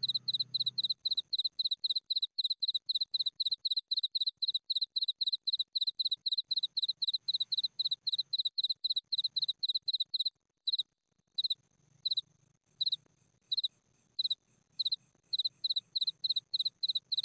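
A cricket chirping in short, evenly spaced high-pitched chirps, about three a second. About ten seconds in the chirping breaks off briefly, comes back slower and uneven, then settles into its steady rhythm again.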